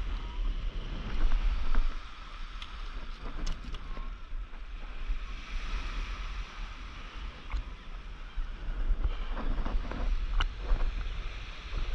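Wind buffeting the microphone over small waves washing onto a sandy beach, with a few light clicks.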